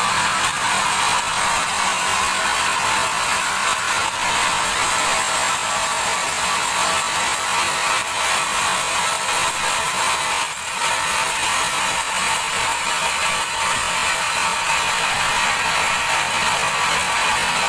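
Band sawmill blade cutting lengthwise through a large teak log: a steady, loud sawing noise, with a brief dip about ten and a half seconds in.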